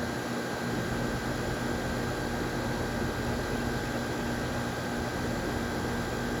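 A brand-new 2025 Bryant 2-ton heat pump running steadily in cool mode: even fan noise with a low hum and a faint steady high tone.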